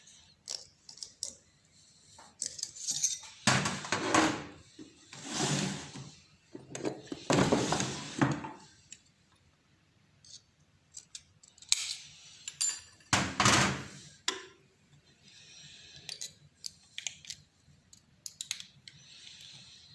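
Small metal jeweller's tools clinking and knocking on a workbench, with several longer scraping strokes about a second each, from working on a silver ring.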